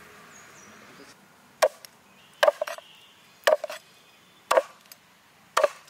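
A blade chopping a duck carcass into pieces on a wooden chopping board: five sharp chops about a second apart, some with a quick lighter follow-up strike.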